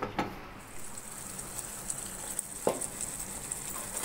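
Marinated chicken pieces sizzling in oil with onion and tomato masala in a frying pan, a crackling hiss that comes in under a second in. Two short knocks sound, one just after the start and one about two and a half seconds in.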